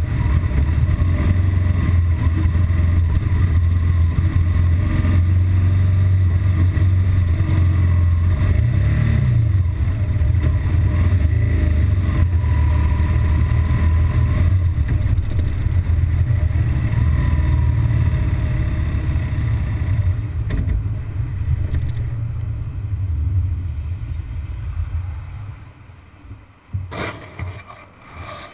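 BMW R1200GS Adventure's flat-twin engine running unevenly at low revs with a brief rev rise about a third of the way in, then dying away near the end, as the bike suffers its intermittent rough-idle and stalling fault; a few short knocks follow the cut-out.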